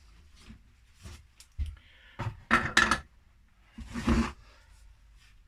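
Handling noise of small tools and parts being rummaged through: scattered light clicks, then two louder clattering bursts about two and a half and four seconds in.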